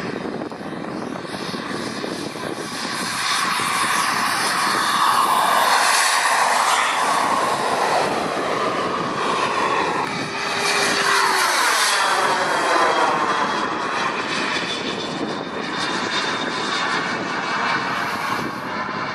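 Model jet's K-180G2 turbine engine whining in flight, growing louder twice as the jet flies past, about four to eight seconds in and again around eleven to thirteen seconds in, its pitch dropping each time it goes by.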